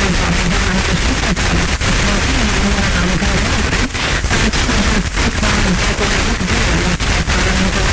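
Weak, distant FM broadcast on a radio receiver: heavy hiss with faint talk barely audible underneath, the signal fluttering and briefly dropping out many times, typical of reception by scatter propagation.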